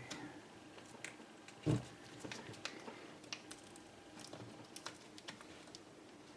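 Faint small clicks and light taps of fingers and plastic as the display ribbon cable's connector is worked into the socket on the back of a replacement laptop LCD panel, with one louder dull knock a little under two seconds in.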